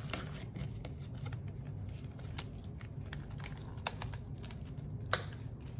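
Cash envelope and budget binder being handled on a desk: light rustling and scattered soft clicks, with one sharper click about five seconds in.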